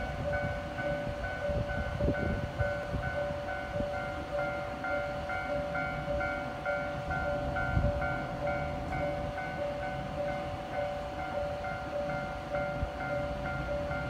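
Japanese railway level-crossing alarm ringing, an electronic ding repeated evenly about twice a second, the warning for an approaching train. A low rumble runs underneath.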